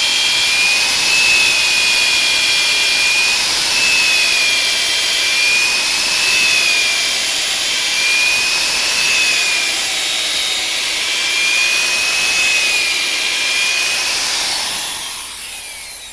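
Power drill boring a deep hole into a large log, its motor whine wavering in pitch as the load changes, then winding down near the end.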